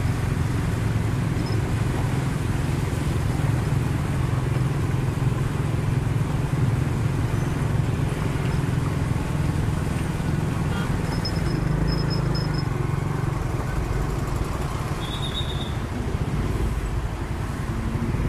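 A motorcycle being ridden through traffic, heard from the bike itself: a steady low rumble of engine and road and wind noise, easing a little near the end as it slows.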